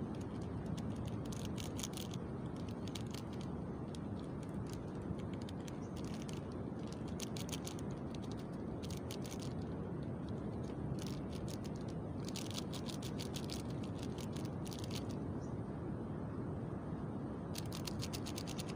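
Steady rush of ocean surf breaking on the beach. Over it, short bursts of rapid, fine clicking come and go every second or two.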